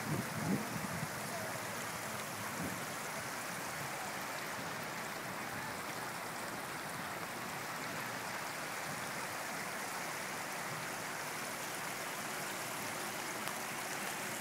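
Floodwater rushing in a steady, even flow, with a few low bumps in the first second.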